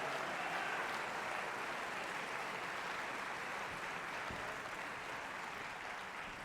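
Audience applauding, a dense steady clapping that slowly thins and fades toward the end.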